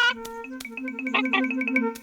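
Playful cartoon background music of short, bouncing notes over a repeating low note.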